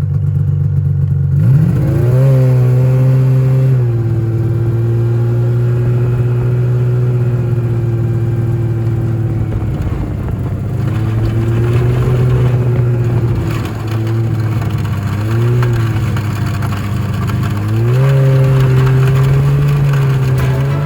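1995 Yamaha Phazer snowmobile's two-stroke twin engine running after a spark plug boot repair, revved up and let back down several times: up about a second and a half in, dropping back near the middle, then up again briefly a few times and once more near the end.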